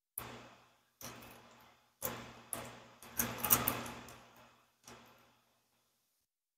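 Small plastic noodle-seasoning packets crinkling and rustling in gloved hands as they are cut open and squeezed out, in six short bursts, the longest and loudest about three seconds in.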